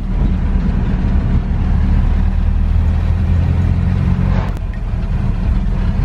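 Vintage van's engine running steadily while driving, heard from inside the cab: a low drone with road noise over it.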